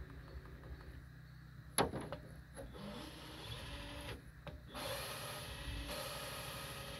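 A valve being lapped into its seat on a Detroit DD15 cylinder head: gritty rasping of lapping compound as the valve is turned against the seat, louder and steadier in the second half, with a sharp tap about two seconds in.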